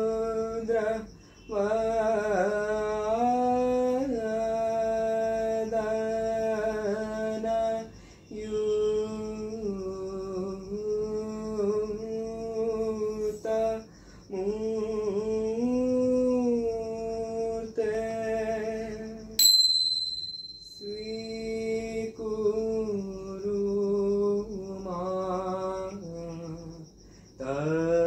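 One voice singing a devotional hymn unaccompanied, in long held phrases with short breaks between them. About two-thirds of the way through, a single sharp metallic ting rings briefly.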